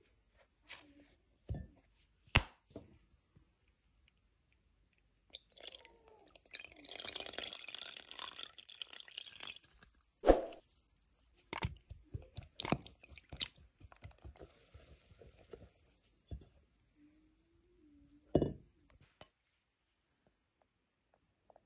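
Batter being mixed by hand in a mixing bowl: two sharp knocks early on, milk poured over flour and eggs for about four seconds, then a quick run of clicks and taps of utensils against the bowl, and one last loud knock near the end.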